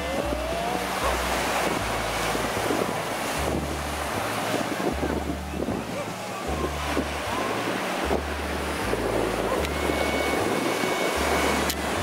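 Sea surf washing onto a beach with wind on the microphone, under background music with a bass line of held notes.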